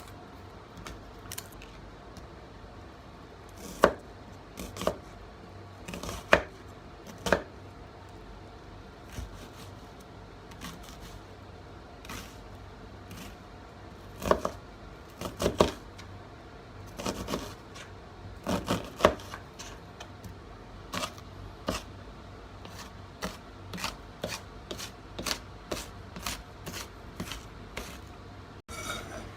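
Kitchen knife chopping on a cutting board: scattered single cuts at first, then steady chopping at about two strokes a second in the last third.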